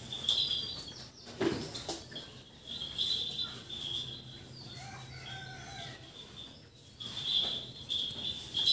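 Background chirring of insects with some bird-like chirps: a high, steady trill that comes and goes in stretches, plus a single knock about a second and a half in.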